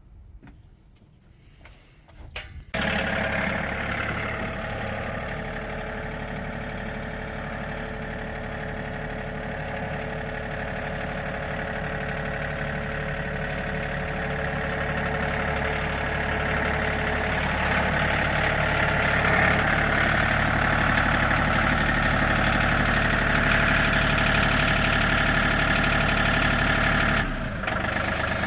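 Tractor engine starting up about three seconds in, then running steadily and growing gradually louder as it is driven into position.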